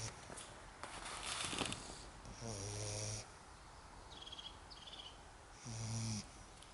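Lagotto Romagnolo puppy snoring in its sleep: low snores a few seconds apart, with a noisy breath between them.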